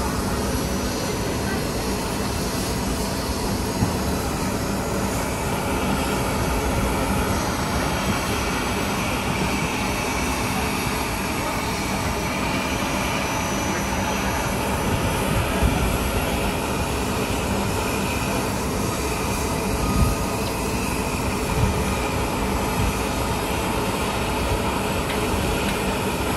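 Twin jet engines of a Boeing 757 running on the ground: a steady rush with a faint whine.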